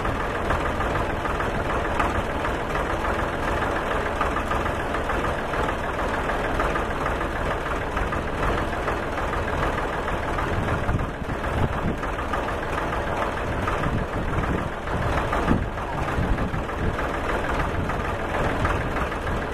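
Farm tractor engine idling steadily, with a few brief knocks in the second half.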